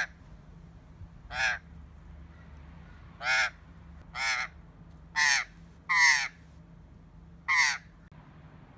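Australian magpie giving about seven short calls, roughly one a second; the later calls fall in pitch.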